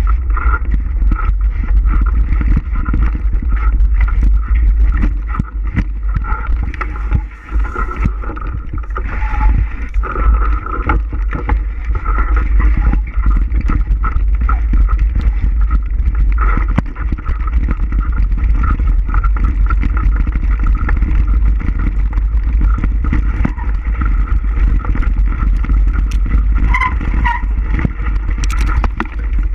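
Steady rumble of wind buffeting the microphone and tyre and trail noise from a bike being ridden, loud throughout with a brief dip about seven seconds in.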